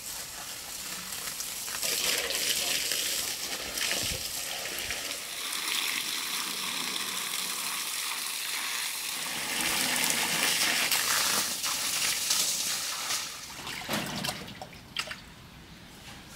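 Garden hose spraying water onto a sturgeon in a basin: a steady rush and splash of water that stops about three-quarters of the way through, followed by a few splashes as the fish is moved in the basin.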